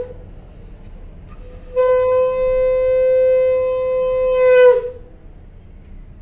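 Conch shell (shankh) blown in one long, steady, horn-like note of about three seconds, starting nearly two seconds in and sagging in pitch as the breath runs out. Just before it, the end of a previous blast trails off. The conch is sounded as part of the evening puja.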